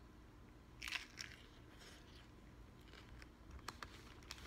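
A bite into a sandwich on rye bread with lettuce, a short crunch about a second in, followed by faint chewing with a few small mouth clicks.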